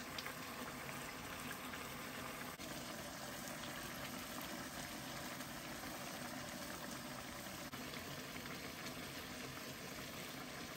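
A pot of food boiling steadily on the fire, a low, even bubbling hiss.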